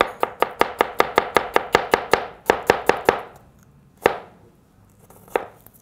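Chef's knife slicing an onion into thin julienne strips on a cutting board: a quick, even run of chops, about five or six a second, for roughly three seconds, then two single chops a little over a second apart.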